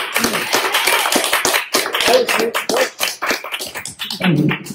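Small audience applauding, a rapid patter of many hand claps that thins out near the end, with a few voices mixed in.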